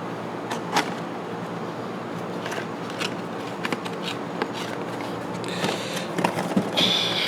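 Tools being handled in a metal tool chest drawer: scattered light clicks and knocks over a steady low hum. Near the end comes a louder metallic rattling and sliding.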